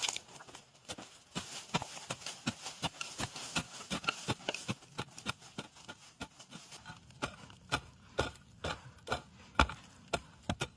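Digging for winter bamboo shoots: a rapid, irregular run of sharp knocks and scrapes as a digging tool strikes into soil and bamboo roots.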